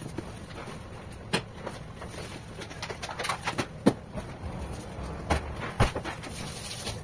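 Kitchen handling at a cutting board: a knife and hands setting down and cutting rolled cake slices, giving a few sharp taps and knocks, the loudest about four seconds in, over a steady low background noise.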